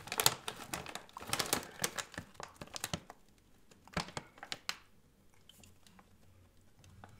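Crinkling and clicking of a plastic tortilla-chip bag and chips being handled. The noise is dense for about three seconds, then a few scattered clicks before it goes quiet.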